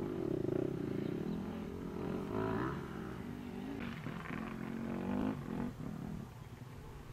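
Off-road motorcycle engines revving up and down, their pitch rising and falling.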